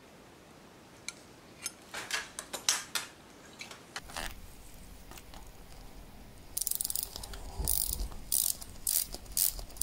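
Silver First World War trench watch being wound at the crown, its winding click ratcheting in short runs of rapid clicks, a few scattered clicks at first, then steady runs about twice a second in the second half. The winding builds no tension on the mainspring: it is broken or has come detached from its arbor, as the watchmaker judges it.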